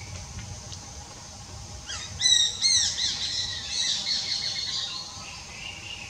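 A bird calling: two loud arched notes about two seconds in, then a quicker run of notes that fades out about five seconds in, with fainter calls near the end.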